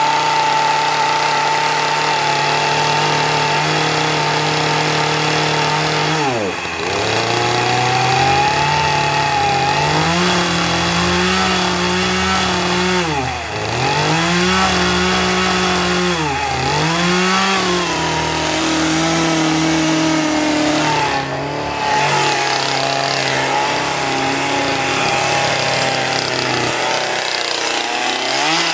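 Poulan Pro two-stroke gasoline chainsaw running without cutting. Its engine note holds steady, then several times drops sharply and climbs back up again.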